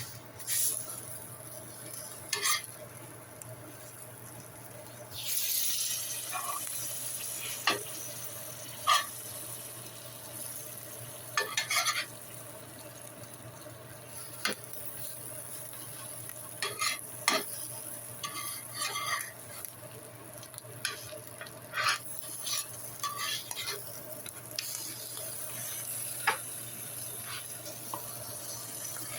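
Buttered flour-tortilla tacos sizzling on a flat-iron griddle, the sizzle growing louder about five seconds in, with repeated sharp utensil scrapes and taps on the griddle.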